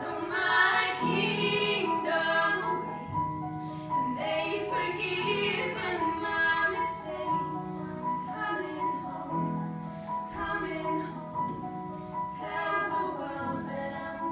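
A female voice singing a melody over sustained instrumental accompaniment.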